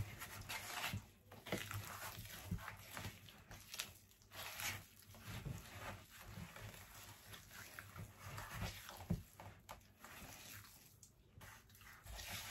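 A bare hand mixing a thick icing-sugar glaze in a bowl, making faint, irregular wet smacks and squelches as it works the glaze around.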